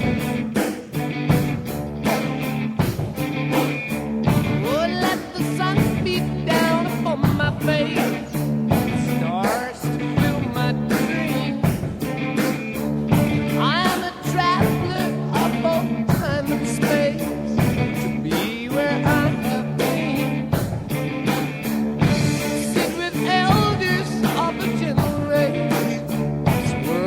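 Soundtrack music with a steady beat, held instrument notes and some sung or sliding melodic lines, without rap vocals.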